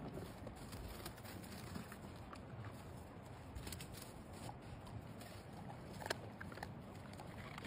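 Faint patter of dogs' paws on snow, with scattered soft clicks and one slightly louder click about six seconds in.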